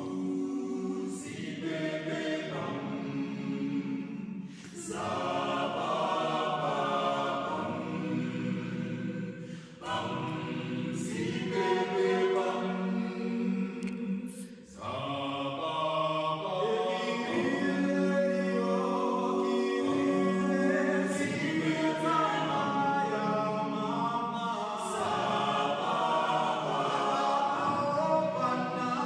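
A choir singing gospel-style music, phrase after phrase, with brief pauses between phrases.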